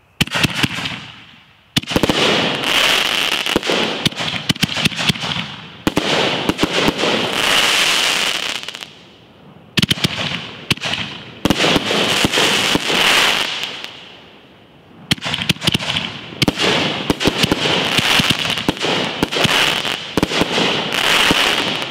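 Legend Fireworks Taste My Venom consumer canister shells going off in quick succession: sharp bangs of the shells breaking, each followed by dense crackling that fades. The crackling comes in repeated waves, a fresh volley every few seconds.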